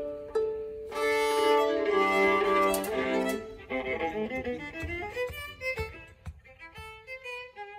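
Violin-family bowed strings playing a passage: a few short detached notes, then sustained notes with several pitches sounding together from about a second in, moving to quicker, shorter notes that grow quieter toward the end.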